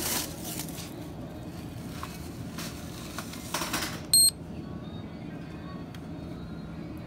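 Ingenico card payment terminal giving one short, loud high beep about four seconds in, during a debit card payment, over a steady low hum, with rustling handling noise before it.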